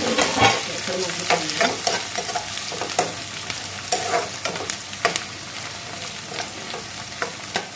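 Sliced onions and green chillies sizzling in hot oil in a kadai, stirred with a spoon that scrapes and knocks against the pan at irregular intervals.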